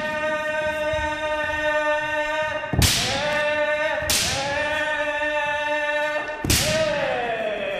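Kendo practitioners' long, sustained kiai shouts, held almost without a break, cut by three sharp cracks of bamboo shinai strikes and stamping footwork about three, four and six and a half seconds in. After the last strike the shout falls in pitch and fades.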